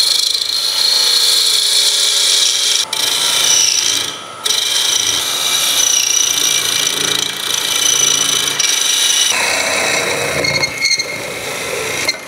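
Turning tool cutting into a spinning wooden workpiece on a wood lathe, shaping a small peg: a steady scraping hiss with a high whistling edge, broken briefly about four seconds in.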